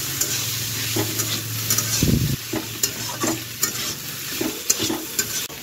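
Chopped mushrooms and tomatoes frying and sizzling in a steel kadhai while a steel spatula stirs them, scraping and tapping against the pan again and again. A short low thump comes about two seconds in.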